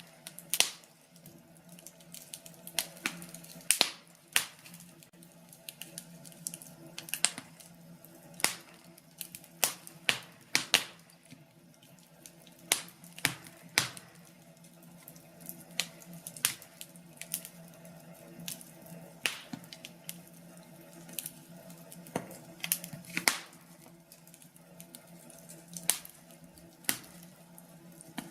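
Fire in a fireplace crackling: irregular sharp pops and snaps, some much louder than others, over a faint steady hum.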